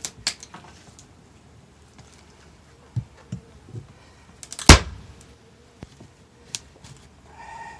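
Scattered knocks and clunks of demolition work on a wooden shed floor, a few light ones followed by one heavy, loud impact about two-thirds of the way in.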